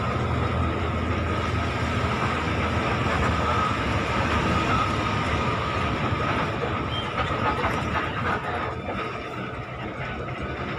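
Inside the cabin of a moving intercity bus: steady engine and road drone with a thin, steady whine over it, easing off a little near the end.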